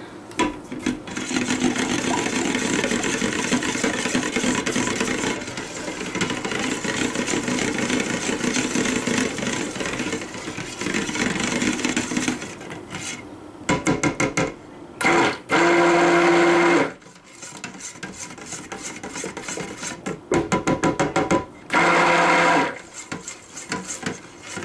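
Electric stick blender running in cold process soap batter in a stainless steel pot, mixing in titanium dioxide. It runs steadily for about twelve seconds, then is switched on and off in short bursts with louder, higher whines near the end.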